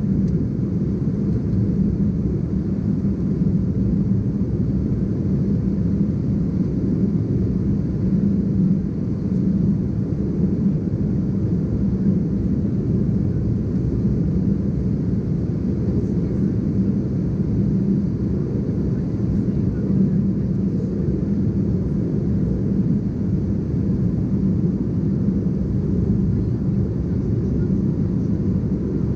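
Steady in-flight cabin drone of an Embraer ERJ-190 airliner: its CF34-10E turbofan engines and the airflow over the fuselage make an even, low rumble that does not change.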